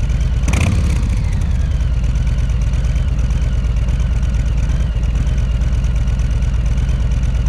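2021 Harley-Davidson Low Rider S's Milwaukee-Eight 114 V-twin idling steadily through its stock exhaust, which is pretty quiet at idle. A brief rush of noise comes about half a second in.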